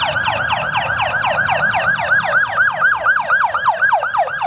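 Ambulance siren sounding in a fast repeating yelp, each note sliding down in pitch, about five times a second.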